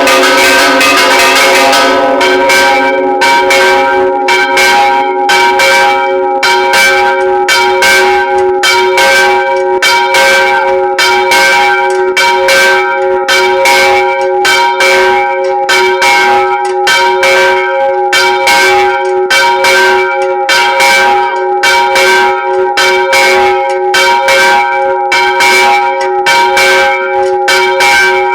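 Church bells ringing loudly in a fast peal, struck several times a second, their tones ringing on and overlapping.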